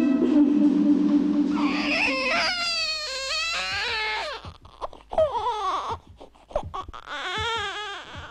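Newborn baby crying: several wavering wails with short gaps between them. A low held musical tone underneath ends about two seconds in.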